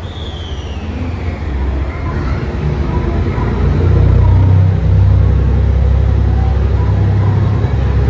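A JR Shikoku 2700-series diesel train's engines throttling up as it pulls away from the platform: a deep low rumble that grows louder about three to four seconds in, then holds steady. A faint high tone falls in pitch over the first two seconds.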